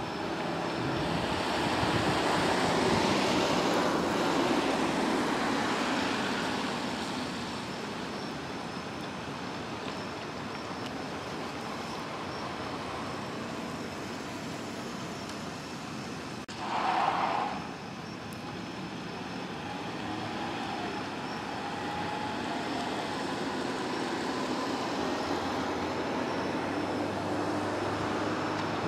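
Road traffic passing on a wet road: a steady rushing hiss that swells over the first few seconds as a vehicle goes by, with a brief louder burst a little past the middle.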